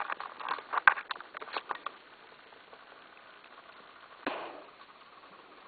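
Guinea pig rummaging through a plastic dustpan of swept-up hay: a run of crackling rustles and small clicks in the first two seconds, then one short rustle about four seconds in.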